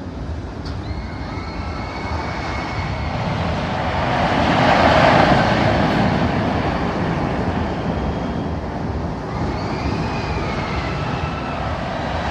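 Roller coaster train running along its track: a steady rumble that swells about four seconds in and eases off, with faint high squeals over it near the start and again near the end.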